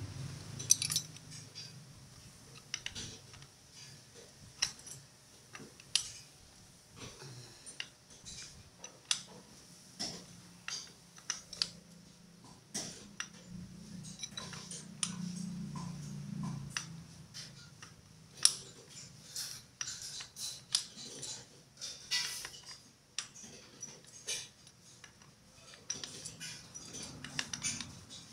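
Irregular metallic clinks and taps of hand tools and steel parts being handled during car underchassis work, with a low hum for a few seconds around the middle.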